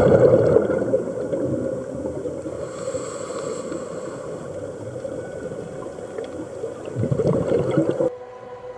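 Underwater sound picked up through a camera housing: scuba divers' exhaled bubbles gurgling, with a louder swell of bubbles near the end before the sound cuts off abruptly.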